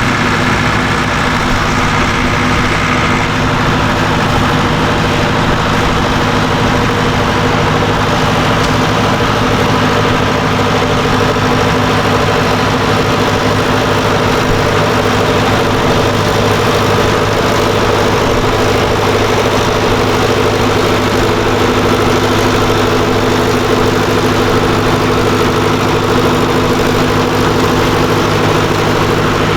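Tractor engine running at a steady, even speed.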